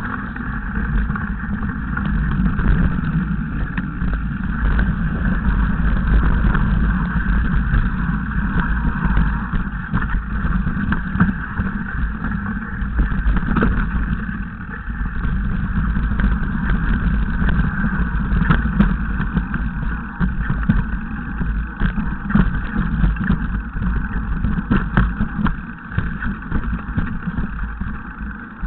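Mountain bike descending a rocky trail, with continual rattling and knocks from the bike over the stones and a steady low wind rumble on the microphone.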